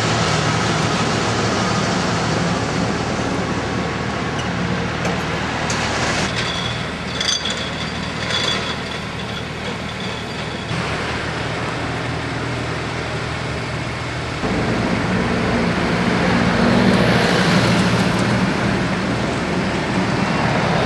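The diesel engine of a mobile crane running steadily, with road traffic behind it. There are a few short clicks about a third of the way in, and the engine gets louder about two-thirds of the way through.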